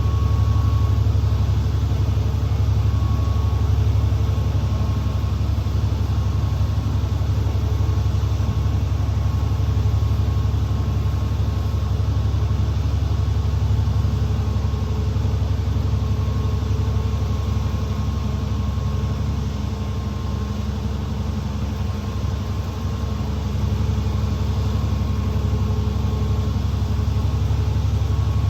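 School bus engine running with road noise, heard from on board: a steady low rumble with a faint whine above it, easing slightly about twenty seconds in.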